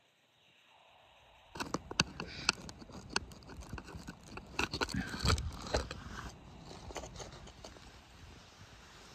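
Irregular scraping, clicks and knocks of loose rock and dirt being handled and shifted by hand in a narrow dig hole in pegmatite. It starts about a second and a half in, after near silence.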